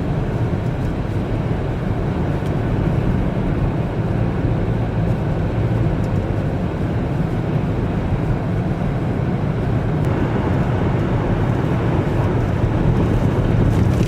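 Steady low rumble of a vehicle driving on a highway, a blend of tyre noise and blizzard wind, with no pitched engine note standing out.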